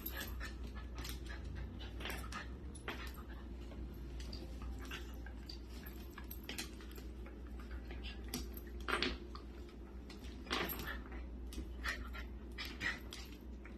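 Two dogs play-fighting, with many short, irregular dog vocal sounds and scuffling, a few louder ones a little past the middle and about two-thirds of the way through.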